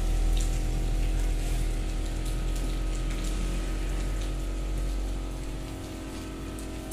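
Steady mechanical hum made of several held tones over a low rumble and faint hiss, from machinery running in a workshop; it cuts off abruptly at the end.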